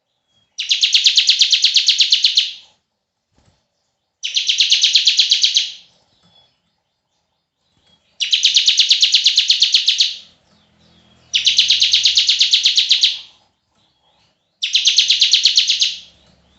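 Bar-winged prinia (ciblek) giving its 'bren' call: five rapid high trills of about two seconds each, separated by short pauses.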